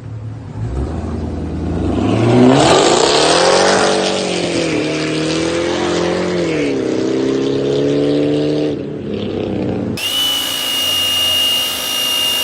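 Supercharged 6.2-litre LSA V8 of a second-generation Cadillac CTS-V running through a new custom exhaust, rising sharply in pitch about a second in, easing off, then rising again and holding before it drops back. About ten seconds in, the sound cuts abruptly to a steady high-pitched tone.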